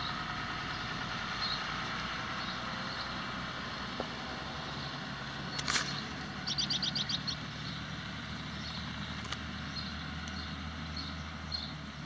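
Pickup truck engine running steadily as it tows a loaded horse trailer away, with birds chirping, including a quick run of high chirps a little past halfway.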